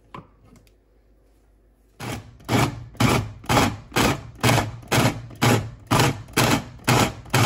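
Electric mini food chopper pulsed in short bursts about twice a second, its blades chopping chunks of raw pork into ground pork. A couple of faint clicks come in the first second; the pulsing starts about two seconds in.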